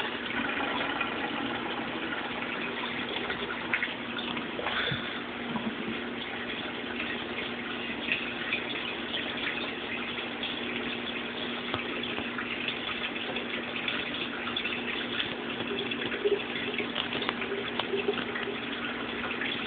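Steady rush and splash of water circulating through a home saltwater aquarium, with a low steady hum underneath.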